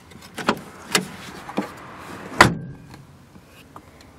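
Rear-door inner handle and latch of a 2013 Daewoo Nexia being worked by hand: three light clicks about half a second apart, then a louder clack about two and a half seconds in.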